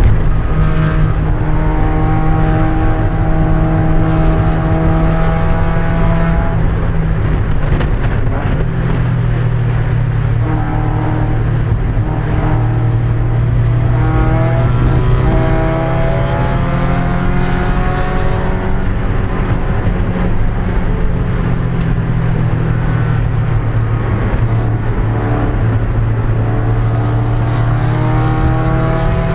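1995 Mazda Miata's 1.8-litre four-cylinder engine under racing load. Its pitch repeatedly climbs, then drops back through shifts, lifts and downshifts, over a steady rushing noise.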